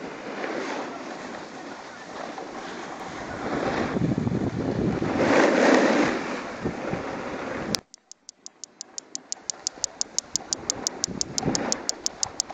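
Skis scraping and sliding over packed snow, with wind on the microphone, swelling louder about four to six seconds in. Almost eight seconds in the noise cuts off abruptly and a fast, even ticking, about six ticks a second, starts while the sliding noise builds again.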